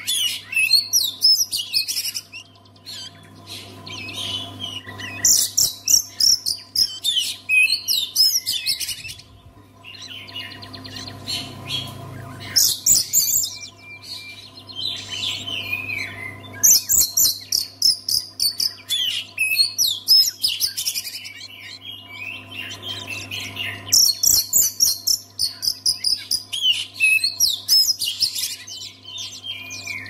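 Oriental magpie-robin (kacer) singing: loud, varied phrases of high whistles and rapid chirps in bursts of a few seconds, broken by short pauses.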